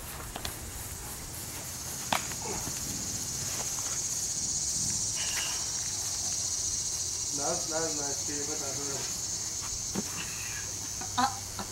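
Insects buzzing in a steady high drone that grows louder toward the middle, with a short voice about two-thirds of the way through and a few sharp knocks.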